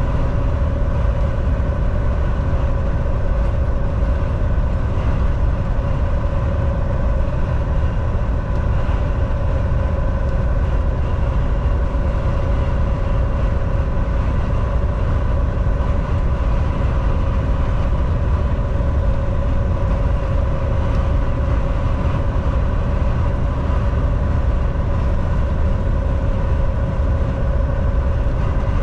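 Semi truck driving at a steady speed: a constant low engine and road rumble with a steady hum on top.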